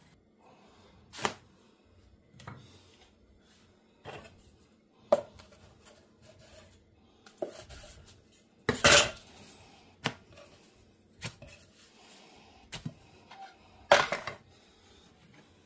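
Separate sharp knocks of a long two-handled rocker knife cutting naan against a wooden cutting board, one every second or two, the loudest about nine seconds in. Near the end, a ceramic plate is handled against the board.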